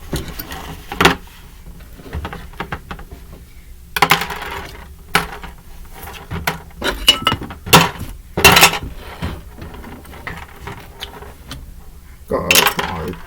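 Plastic model-kit parts and accessories clattering as they are packed back into their box: an irregular series of clicks, knocks and short rustles.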